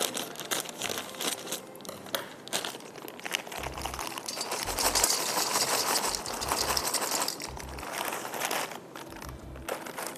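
A plastic packet of dry twisted macaroni crinkling and rustling as it is handled, with many small clicks and rattles that grow denser and louder about four seconds in and ease off near the end.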